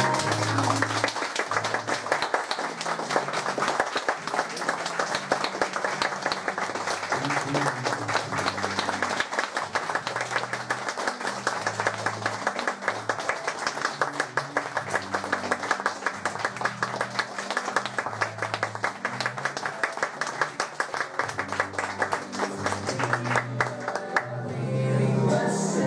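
Theatre audience applauding steadily over music with low bass notes.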